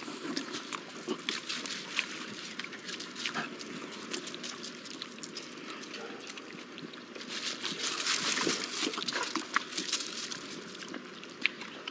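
Small puppies moving about on dry leaves and bare dirt, making scattered light rustles and ticks. A spell of louder rustling comes a little past the middle.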